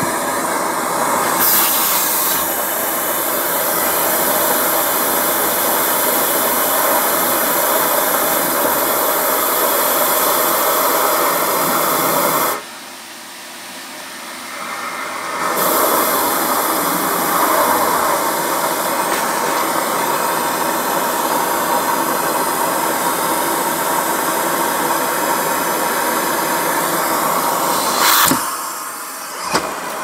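Vacuum cleaner running steadily, its suction rushing at a hose opening set into a cardboard box. About a third of the way in the rush drops away for about three seconds, then comes back. Near the end there are two sharp clicks with a brief dip between them.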